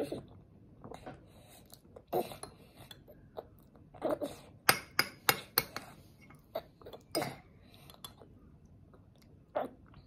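A toddler's metal fork clinking and scraping against his bowl as he scoops up omelet rice, with a quick run of clinks around the middle, and soft chewing.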